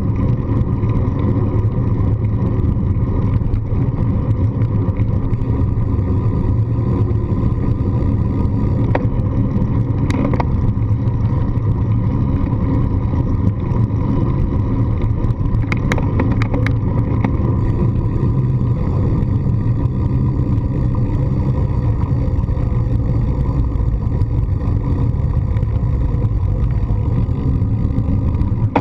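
Steady low rumble of wind and rolling vibration picked up by a handlebar-mounted GoPro on a bicycle riding over brick pavers, with a few sharp rattles about a third and halfway through.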